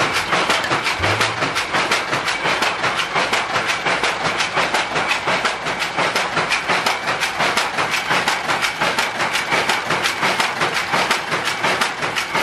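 Homemade bicycle-wheel bobbin winder running, its wheel, chain and spindle making a fast, even clattering rattle as it winds thread onto a bobbin.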